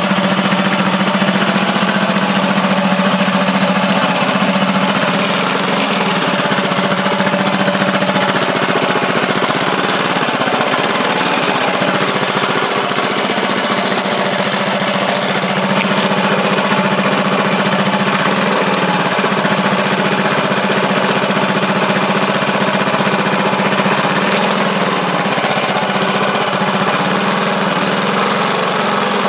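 Honda GX200-clone single-cylinder four-stroke engine running steadily at idle. The engine is freshly built with upgrade parts and is being run in.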